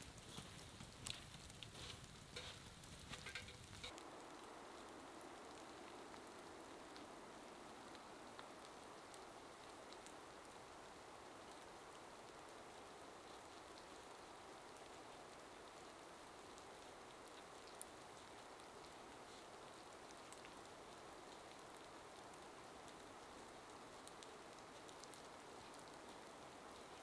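Campfire crackling, with footsteps over snowy ground, for the first few seconds. Then a faint, steady hiss of open-air ambience with nothing else in it.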